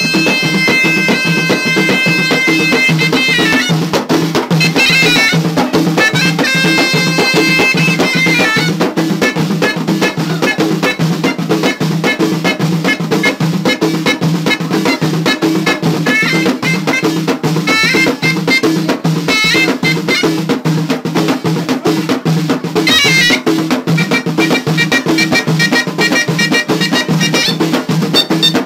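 Moroccan ghaita, a double-reed shawm, playing a shrill folk melody that alternates long held notes with quick ornamented runs. Beneath it, frame drums are beaten in a fast, steady rhythm.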